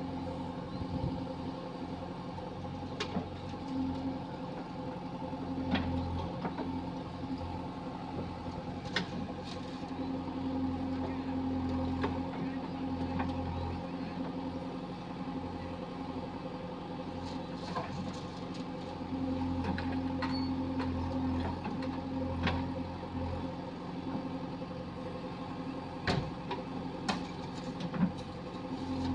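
JCB 3DX backhoe loader's diesel engine running under work, its note swelling and easing every few seconds as the hydraulics take load, with occasional sharp metallic knocks.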